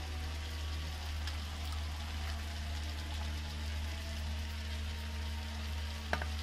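Potatoes frying in oil in a pan over a wood fire, a steady sizzling hiss, with a steady low hum underneath and one sharp click near the end.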